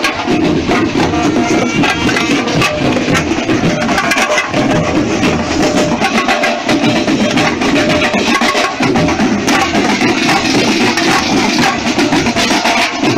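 Marching band drum line playing live: many marching snare drums and small paired tenor drums beaten together in a loud, fast, unbroken rhythm.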